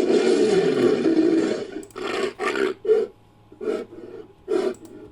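Synthetic dinosaur creature sound effect, mixed from Nanuqsaurus and Utahraptor roars: one long roar of nearly two seconds, then five short, clipped calls in quick succession.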